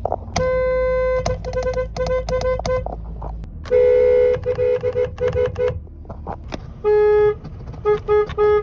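Car horns honking in three bouts, each a longer blast followed by a run of quick short toots, each bout at a slightly different pitch.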